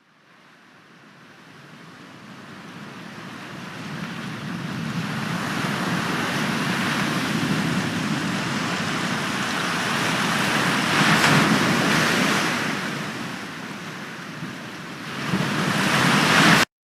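Surf of sea waves, a wide rushing noise that fades in slowly, swells twice and cuts off abruptly near the end.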